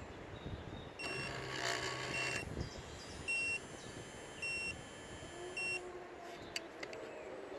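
A short, high electronic beep repeating about once a second, five times, over outdoor background noise. Near the end a faint low tone begins to rise.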